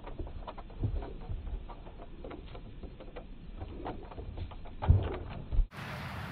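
Scattered light clicks and dull thumps, irregular, with two louder thumps near the end.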